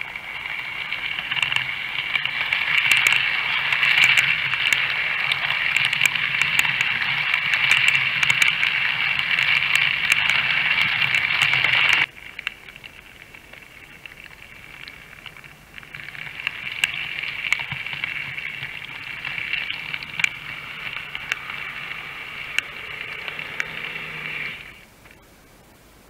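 Model trains running on the track close to the microphone: a steady rattle of metal wheels on rail, peppered with sharp clicks, over a faint low motor hum. It cuts off abruptly about halfway through, comes back a few seconds later a little quieter, and stops shortly before the end.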